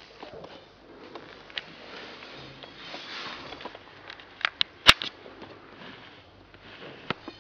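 A Rottweiler puppy sniffing in short noisy breaths, with a few sharp clicks and taps, the loudest about five seconds in.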